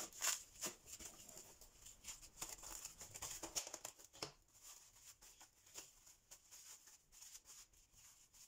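Plastic cling film crinkling in many quick, faint crackles as it is stretched over a bowl of bread dough and pressed down around it, busiest in the first half.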